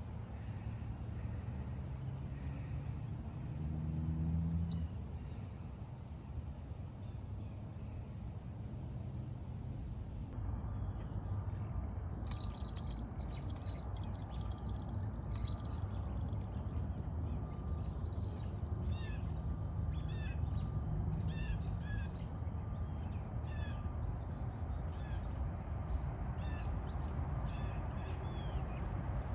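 Outdoor ambience: a steady insect drone over a low, steady rumble. About ten seconds in, birds start chirping in many short calls.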